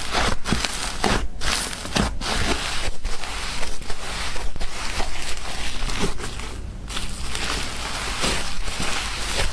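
Hands squishing and stretching soft slime, with a steady run of wet crackling and popping as air bubbles in it burst.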